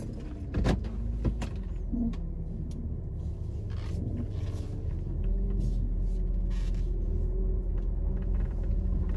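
Car engine running, heard from inside the cabin as a steady low rumble that grows louder about five seconds in as the car pulls away, with a few light clicks.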